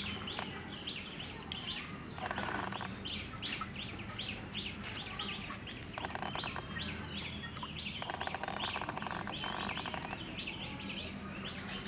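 Several birds chirping, with many short, quick notes, and a fast rattling trill coming in four short spells.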